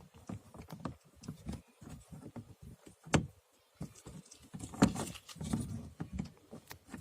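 Irregular plastic clicks and knocks from a car's inner door trim panel being handled and pressed back into place on the door, with one sharper click about three seconds in and a busier run of knocks near five seconds.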